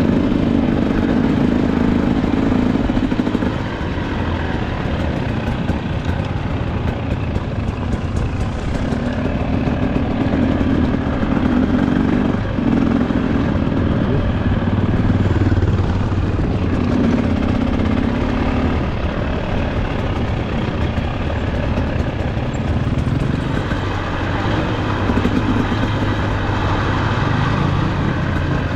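GasGas EC300 TBI two-stroke enduro motorcycle engine running as the bike is ridden, its pitch rising on the throttle and dropping back several times.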